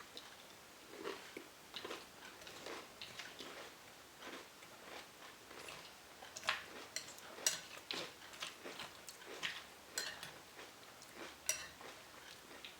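A person chewing mouthfuls of crunchy Chex peanut butter corn cereal: irregular crunches, with several sharper, louder crackles from about halfway through.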